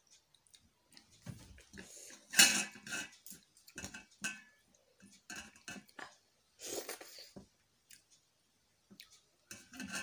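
Close-up eating sounds: fingers scraping curry from a small steel bowl, and chewing with lip smacks. They come in short, irregular bursts; the loudest is about two and a half seconds in.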